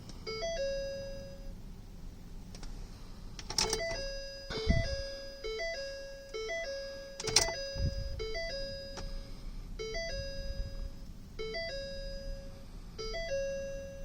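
Truck cab's electronic warning chime sounding over and over, a short two-step tone about once a second, as the key is on with the driver's door open. A few sharp clicks and low thuds come in between.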